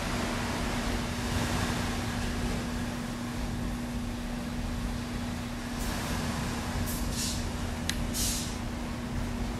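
Steady rumbling, hissing background noise with a constant low hum, and several brief high hisses in the second half.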